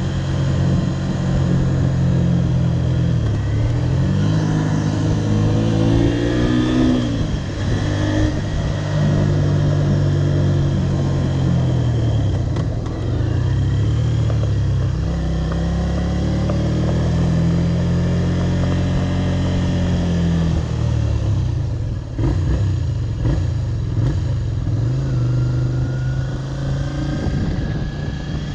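Honda VTR250 V-twin motorcycle engine under way, its pitch climbing and falling repeatedly as the rider works the throttle and changes gear. It eases off for a while about two-thirds of the way through, then builds again near the end.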